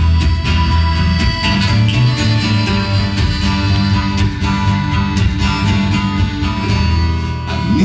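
Live acoustic band playing an instrumental passage with no singing: strummed acoustic guitar and other plucked strings over an upright bass, with steady held notes above.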